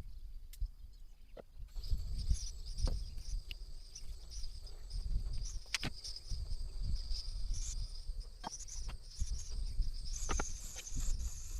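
Lakeside ambience: a steady high insect chirring starts about two seconds in and carries on, over a low rumble and scattered sharp ticks and taps.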